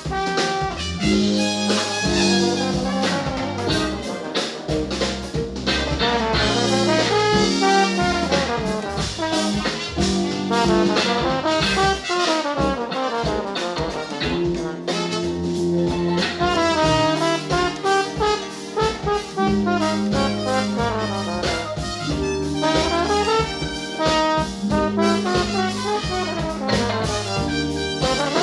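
New Orleans brass band playing: trumpets and trombones carry the melody over a repeating low bass line.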